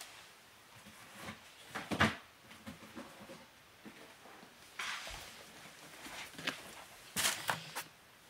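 Sneakers and their cardboard shoe box being handled: a light knock about two seconds in, a brief rustle near the middle and a few small clicks near the end.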